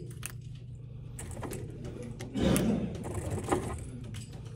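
Small clicks and rustles of hands handling gear at a shooting bench, over a steady low hum. A louder muffled thump with rustling comes about two and a half seconds in, and a sharp click follows a second later.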